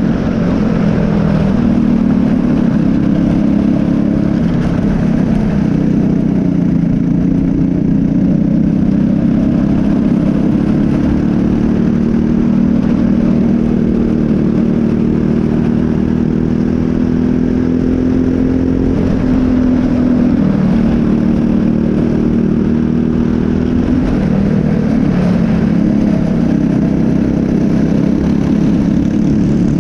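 Briggs & Stratton LO206 single-cylinder four-stroke kart engine running hard at racing speed, heard close up from the kart itself. Its pitch climbs on the straights and drops briefly twice in the second half as the driver lifts for corners.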